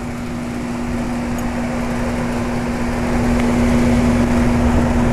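York Champion IV 'Tombstone' central air-conditioner condensing unit (circa 1975) running flat out: a steady compressor hum under the even rush of the condenser fan, growing gradually louder.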